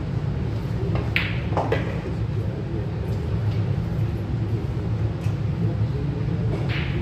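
A pool shot: the cue striking the cue ball and, about half a second later, a ball-on-ball click, heard as two sharp clicks about a second in, with a softer click near the end. A steady low hum runs underneath.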